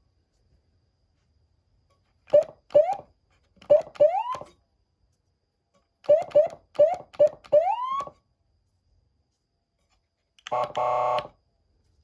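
Galls Street Thunder ST240 electronic siren amplifier sounding short rising chirps, in two bursts of quick blips that each end in a longer upward sweep. Near the end it gives a short, steady buzzing horn tone.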